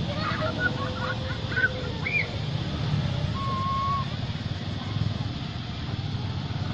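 Macaques giving short, high-pitched chirping calls, several in quick succession in the first couple of seconds and one longer, level call a little past the middle, over a steady low rumble.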